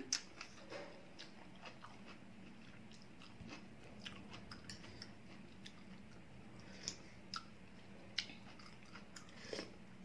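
A person chewing a mouthful of noodle soup with shrimp and greens: soft wet chewing and mouth sounds, close up, with a few sharper clicks in the second half.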